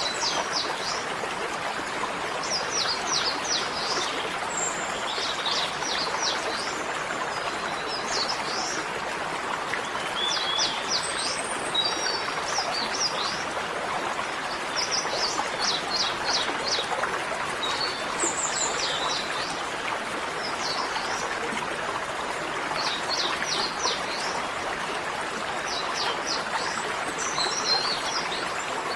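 Small birds chirping, in repeated clusters of quick high downward notes, over a steady rushing hiss.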